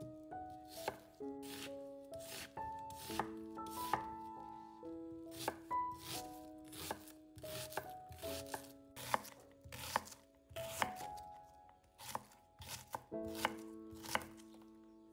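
A kitchen knife chopping food on a cutting board in sharp, irregular strokes, roughly two a second, over background music with held notes.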